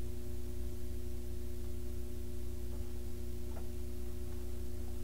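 A steady low hum, with a picture book's page being turned: two faint rustles about three seconds in.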